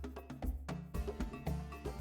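Background music: an instrumental track with a steady beat of sharp wood-block-like percussion over a low bass.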